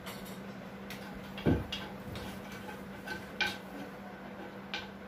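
Wooden pestle knocking against a stone mortar while pounding chutney: one heavy thud about a second and a half in, with several lighter clicks and taps around it.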